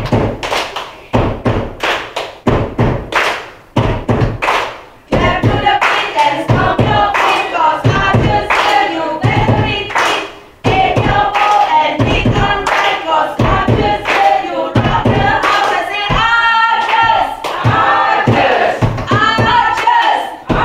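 A group of people clapping in time, joined about five seconds in by voices singing together over the claps.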